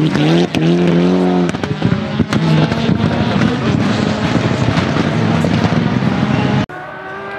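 Rally car engine accelerating hard past the spectators, its revs rising and dropping at each gear change. It runs into a loud, dense mix of engine and tyre noise with many sharp pops and crackles. Near the end it cuts abruptly to another rally car's engine, quieter and farther off, revving up.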